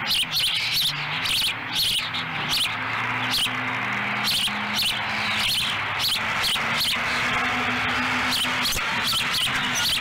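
Ospreys calling: a rapid run of short, high chirps, about two to three a second.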